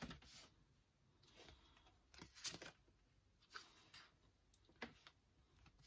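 Tarot cards being drawn from the deck and laid down on a board: a few faint, brief rustles and soft slaps of card on card and board.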